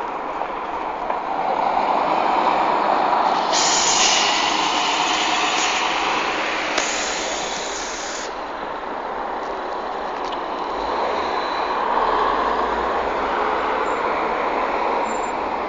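A First single-decker bus running past close by, its engine and tyres giving a steady road noise. A loud hiss starts abruptly a few seconds in and cuts off sharply about four seconds later. Another vehicle swells past near the end.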